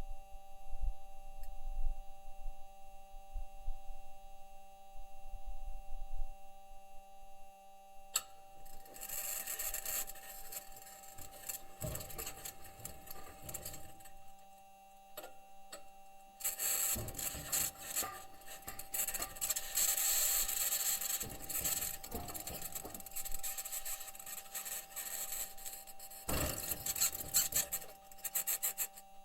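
Perseverance Mars rover driving, heard through its entry, descent and landing microphone. First come low rumbles and thumps from the wheels and suspension on the ground. About eight seconds in, a loud, high-pitched scratching starts and runs in two long stretches over a few faint steady tones. NASA's engineers take the scratching for either electromagnetic interference from one of the rover's electronics boxes or the mobility system rubbing on the Martian surface.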